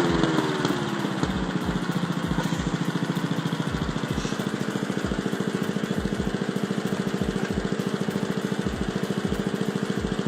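Small petrol lawn mower engine running. Its pitch drops in the first second, then it holds a steady, evenly pulsing note.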